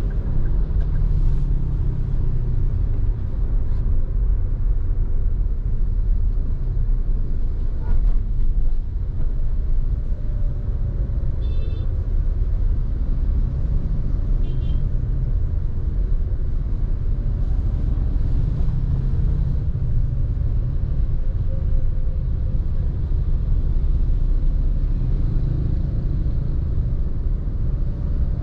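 Steady low rumble of a car driving through city traffic, with two short high-pitched beeps partway through.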